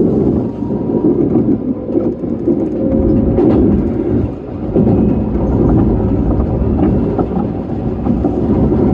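Keisei Evening Liner train running along the track, heard from inside the car: a steady rumble of wheels and running gear, with a click about three and a half seconds in.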